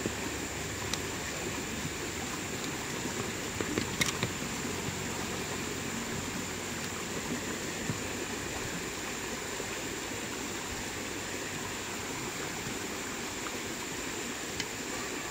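Steady rushing of a flowing stream, with a thin high tone held above it and a few light clicks about four seconds in.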